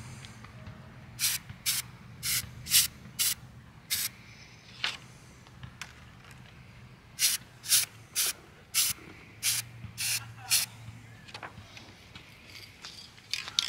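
Aerosol spray-paint can sprayed in short bursts through a paper camouflage stencil onto a rifle: two runs of about seven quick hisses each, with a pause between them.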